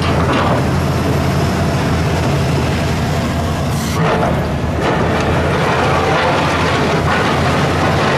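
A demolition machine's diesel engine running steadily under load, with a few crunching knocks of rubble about four and five seconds in.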